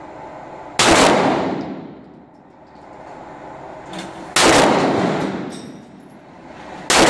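Smith & Wesson SD9VE 9mm pistol fired three times at a slow pace, a few seconds apart, with the third shot near the end. Each sharp report echoes and dies away over about a second in the enclosed indoor range.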